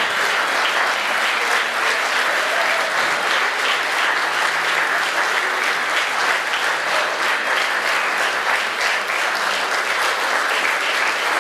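Audience applauding steadily, a dense, even clapping of many hands.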